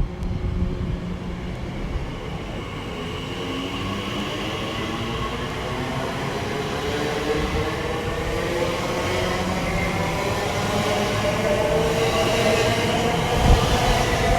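Class 345 electric multiple unit pulling away from the platform: its traction motors give a whine of several tones that rise in pitch as it gathers speed, growing steadily louder. There is a sharp knock at the very start and a thump near the end.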